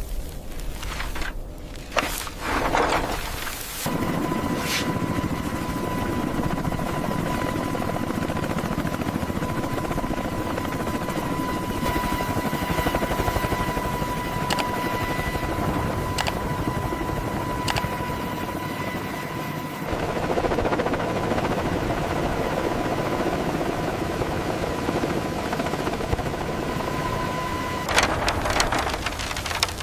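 Machinery running steadily with a high whine, starting about four seconds in and cutting off near the end, with a few sharp clicks along the way.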